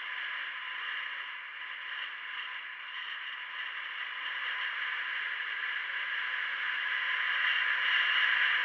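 Steady hiss of wind and road noise picked up by a small onboard camera's microphone on a moving vehicle, growing gradually louder toward the end.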